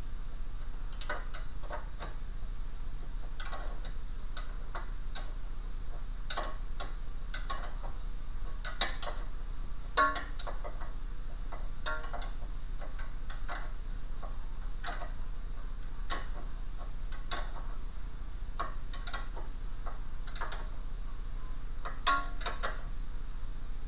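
Ratchet wrench clicking in short irregular runs, a few clicks at a time, as the lower ball joint nut is run down onto its stud.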